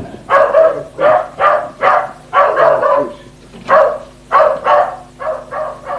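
A dog barking repeatedly in short barks, about two a second, with a brief pause around three seconds in.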